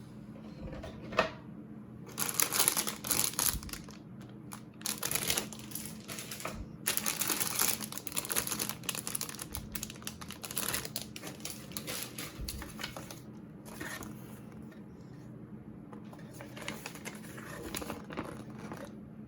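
Plastic model kit parts and packaging being handled: repeated bursts of crinkling and small clicks, each a second or two long, over a faint steady hum.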